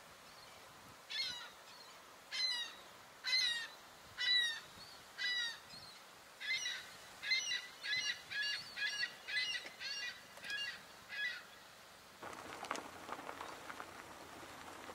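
A gull calling: five drawn-out calls about a second apart, then a quicker run of shorter calls at about two a second. Near the end the calls stop and a rough rustling noise takes over.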